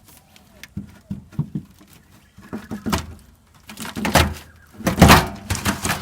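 Knocks, thuds and scraping of metal as a VW Beetle fuel tank stuck to its old mounting gasket is forced loose. The strokes are irregular and get louder near the end, with the heaviest hits around four and five seconds in.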